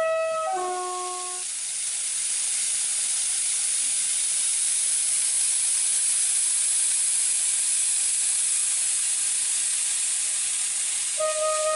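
Steady, fairly loud hiss like compressed air escaping, typical of a locomotive's air system venting. A short run of stepped, falling tones sounds right at the start, and the same run comes again near the end.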